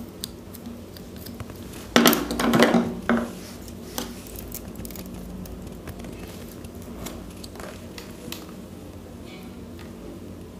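Pliers and fingers working at the lead wires and sleeving of a cooler motor's copper stator winding: faint metal clicks and scraping, with a louder clatter of handling about two seconds in.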